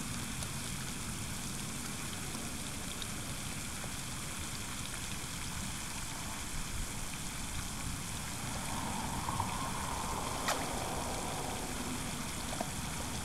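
Steady outdoor rushing noise with an uneven low rumble, and one faint click about ten seconds in.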